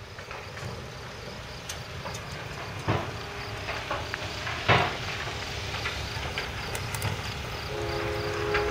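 An approaching CSX freight train led by a GE ES44DC diesel locomotive, its rumble slowly growing louder. Two sharp knocks come about three seconds in and just under five seconds in, the second louder. Near the end, the locomotive's Nathan K-5HL air horn starts a steady chord.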